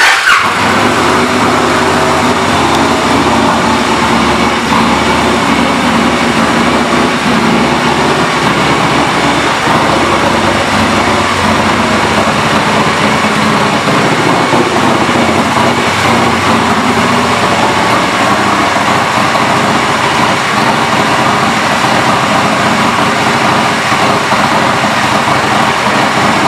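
2004 Victory Vegas motorcycle's V-twin engine idling steadily.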